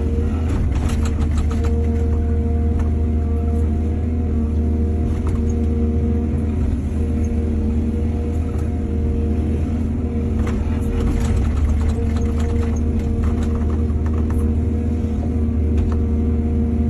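Excavator's diesel engine running steadily under load, with bursts of clattering knocks about a second in and again from about ten seconds in.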